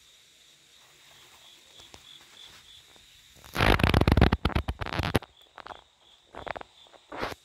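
Loud crackling rustle of leaves and stems being brushed and pushed aside: one long burst a few seconds in, then three shorter ones. Under it a cricket chirps steadily.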